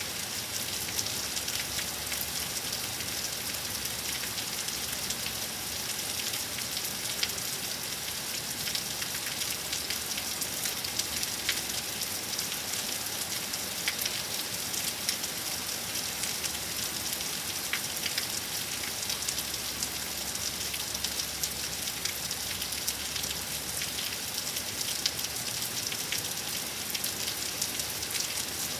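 Steady rain from a severe thunderstorm, a constant hiss with many individual drops ticking sharply on a nearby surface.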